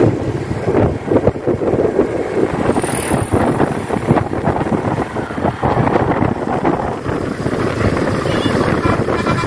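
Road traffic rumble heard from a moving motorcycle: engine and tyre noise from the bus and bikes, with wind buffeting the microphone.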